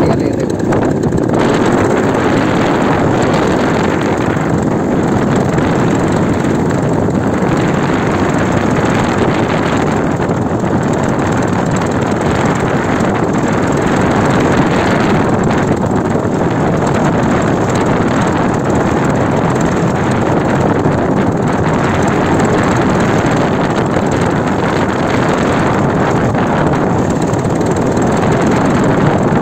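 Steady loud drone of a paramotor trike's engine and propeller in flight, mixed with wind rushing over the microphone.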